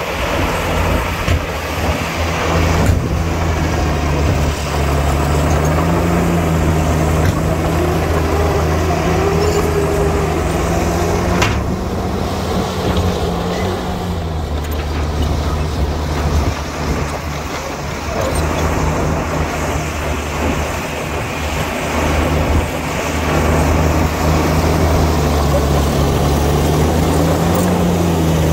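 Heavy diesel engine of earthmoving machinery working, a steady low drone whose pitch rises briefly about six seconds in and again near the end. Two sharp knocks come about three and eleven seconds in.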